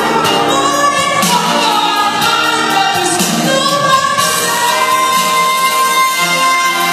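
Music with singing. A long note is held through the second half.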